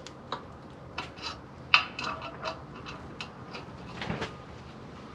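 Hand pipe tap being worked into a hole in a Predator 420 engine's aluminium case: irregular metallic clicks and clinks from the tap and tap wrench, the loudest about a second and three quarters in.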